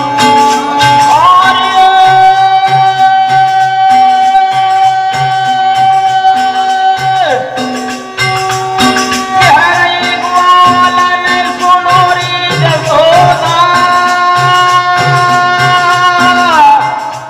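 Birha folk music: a singer holds long, drawn-out notes that slide up into and down out of each pitch, over harmonium, a steady dholak drum beat and jingling rattle-like percussion. The held phrase breaks off briefly about halfway through, then a new long note starts.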